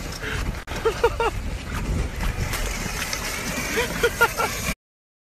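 A few short shouts from people about a second in and again near the end, over a steady low outdoor rumble; the sound cuts off abruptly just before the end.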